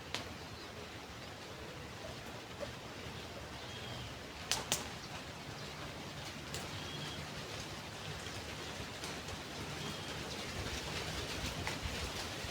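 Riverbank ambience: a steady hiss of flowing water and wind, with a bird's short faint call repeating every three seconds or so and two sharp clicks about four and a half seconds in.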